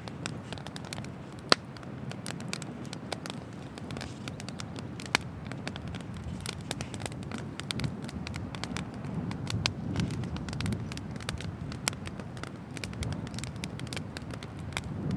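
Wood bonfire crackling, with irregular sharp pops of burning firewood over a steady low rumble, and two louder snaps in the first few seconds.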